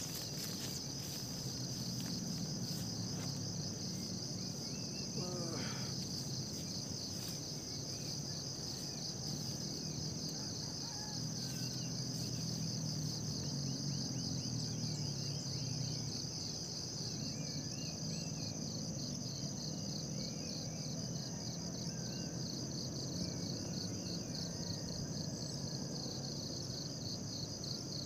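A chorus of insects trilling steadily and high-pitched, over a low, even rumble.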